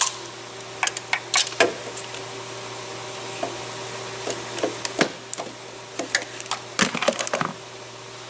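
Sharp clicks and light knocks of hand tools worked at a spark plug hole, as the plug is tried and won't thread in. They come in scattered ones and twos, then a quick cluster about seven seconds in. A steady hum runs underneath.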